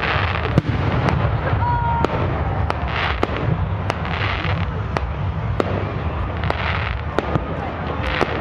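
Aerial fireworks going off overhead: a run of sharp bangs, with several short spells of crackling from the bursting stars, over a steady low background of crowd noise.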